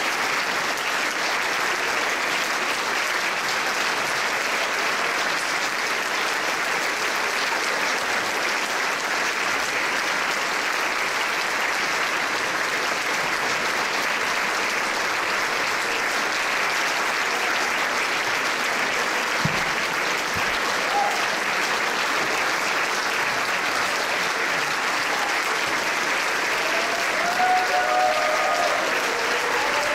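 Large audience applauding steadily, a long sustained ovation.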